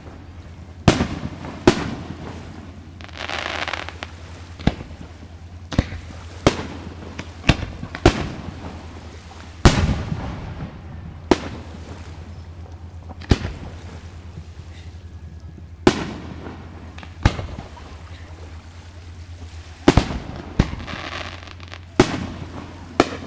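Fireworks going off: a string of sharp bangs every second or two at uneven gaps, some followed by a spell of crackling. A steady low hum runs underneath.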